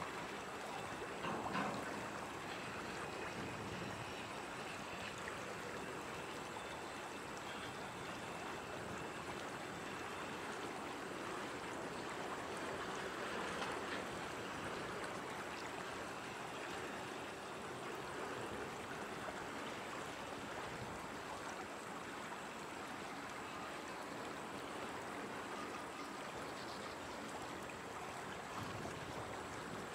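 Slow mixed freight train rolling across a long bridge: a steady rushing rumble of the cars' wheels on the rails, with a couple of faint clanks.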